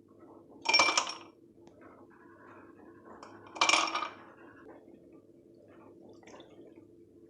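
Two short bursts of kitchen handling noise, about three seconds apart, like water or dishes being moved, with faint small clinks between them.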